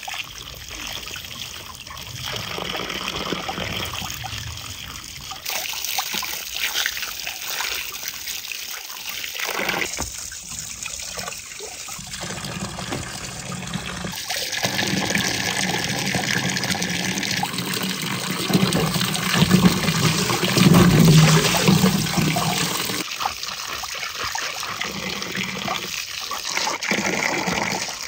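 Water splashing and trickling in a metal basin as hands wash cucumbers and green apples, scooping water up and letting it pour back over them. The splashing comes and goes, loudest about two-thirds of the way in.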